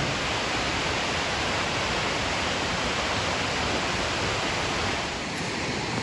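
A waterfall's steady rushing hiss, easing slightly about five seconds in.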